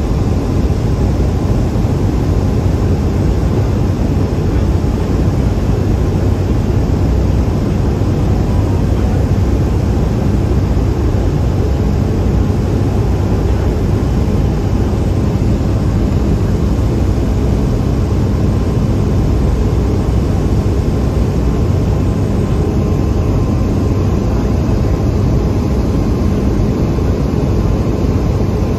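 Steady drone of a Cessna 208 Caravan's PT6A turboprop engine and propeller, heard inside the cabin on approach to land. It is a loud, unchanging rumble with a low hum running through it.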